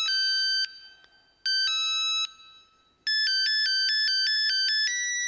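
iPhone alarm going off: an electronic ringtone of bright chiming notes, two short phrases about a second apart, then a quicker run of alternating notes that ends on a held tone.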